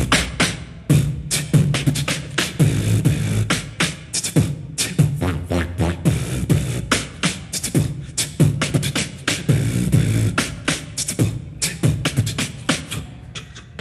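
Beatboxing: a fast, rhythmic run of mouth-made drum sounds, with deep kicks under rapid sharp clicks, thinning out near the end.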